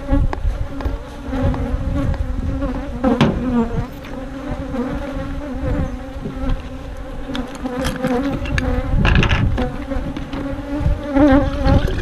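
Honeybees buzzing around an opened hive: a dense, steady hum whose pitch wavers slightly as bees pass close. A low rumble runs under it, heaviest about nine seconds in.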